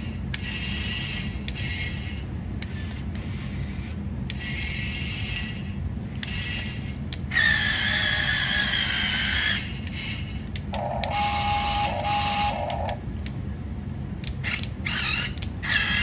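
Small electric motors of a DieCast Masters CAT 297D2 RC skid steer whining in short spurts as it drives and lifts its floor sweeper attachment. The longest and loudest whine comes about halfway through, and a lower-pitched whine follows a few seconds later. A steady low hum runs underneath.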